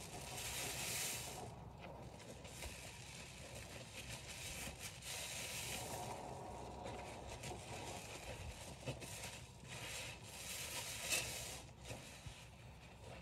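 Soaked bath sponge squeezed and worked by rubber-gloved hands in a pan of thick Lestoil suds: wet squishing with the crackle of foam, swelling with each of a few squeezes.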